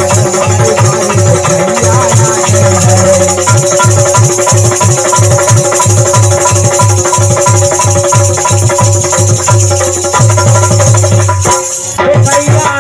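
Instrumental passage of Indian folk music: a harmonium holding steady chords, a dholak beating a fast rhythm, and a hand-held jingle bar with metal discs shaken in time. The music dips briefly near the end.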